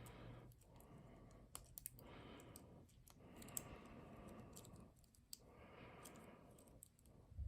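Faint, scattered small metallic clicks of a homemade feeler-gauge lock pick working the pins of a Zi Ikon padlock under light tension.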